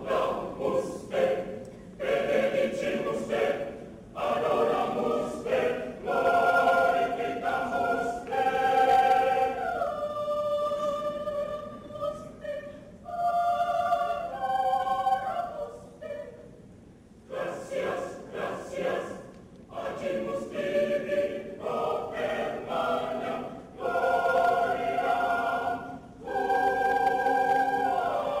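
Mixed choir of men's and women's voices singing in held chords, phrase by phrase with short breaks between, and a longer pause about two-thirds of the way through.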